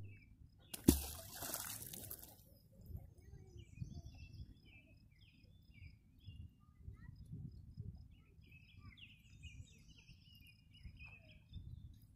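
A round fishing magnet plunging into pond water with one sharp splash about a second in. Birds chirp in short bursts afterwards.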